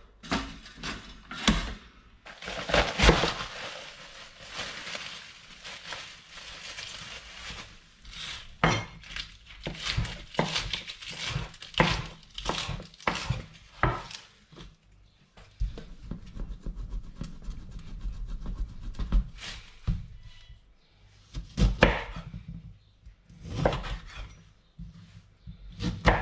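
Kitchen knife chopping lettuce and slicing lemon on a wooden chopping board: runs of quick knocks of the blade against the board, with kitchen handling clatter in between.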